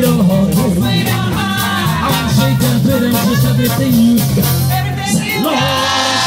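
Live band playing an upbeat song: several voices singing together over strummed acoustic guitar and mandolin, with drums keeping a steady beat.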